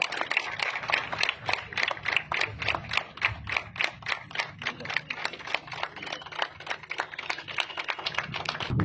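People clapping in a steady, even rhythm, about five claps a second.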